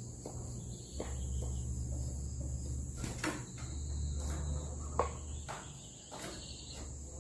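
Steady high-pitched insect drone with no break, over a low hum. About ten irregular short knocks and clatters are scattered through it, the sharpest about three and five seconds in.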